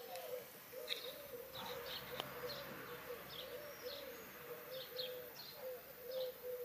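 Birds calling: a steady run of low, wavering notes repeating without pause, with short high chirps scattered through.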